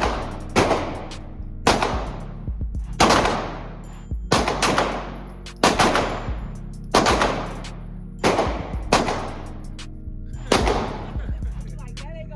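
Firearm shots at a shooting range, fired singly at a steady pace of about one every second or so, some nine in all, each followed by a long echoing tail.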